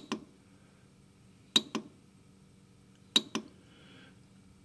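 Keys on the keypad of a Kolver screwdriver controller being pressed three times, about one and a half seconds apart. Each press gives a sharp double click as the operator steps through the settings menu.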